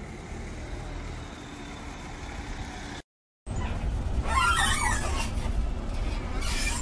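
Ambulance engine and road noise, a steady low rumble: first heard from the street as the ambulance pulls up, then, after a half-second dropout to silence about three seconds in, louder from inside its moving rear cabin. About a second after the cut a brief wavering high-pitched squeal rises over the rumble.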